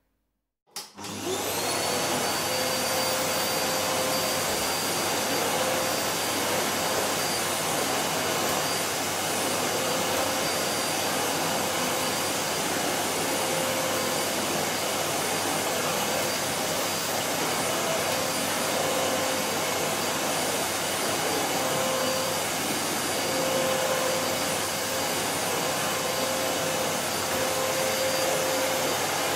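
Vacuum cleaner switched on about a second in: its motor spins up with a rising whine, then runs steadily with a loud rush of air and a constant high whine.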